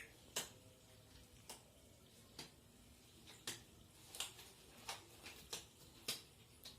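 About ten light, sharp clicks and taps at uneven intervals, like small objects being picked up and set down, over faint room tone.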